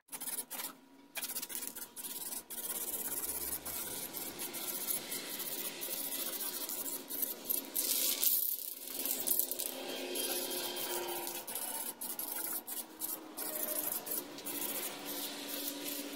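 Aerosol can of Rust-Oleum automotive enamel clear coat spraying, a hiss in a series of bursts with many brief breaks.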